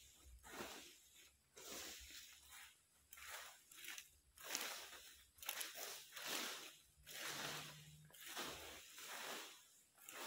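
Brooms and rakes sweeping dry fallen rubber-tree leaves: repeated crackly swishes, about one or two strokes a second.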